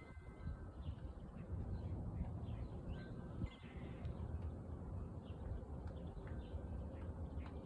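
Small birds chirping many short calls over a steady low rumble of outdoor background noise.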